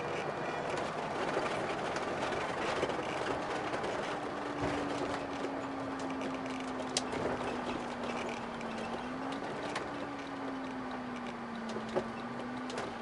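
Motorhome driving with a trailer in tow, heard from inside the cabin: steady road and engine noise. About four seconds in, a humming tone comes in and wavers up and down in pitch.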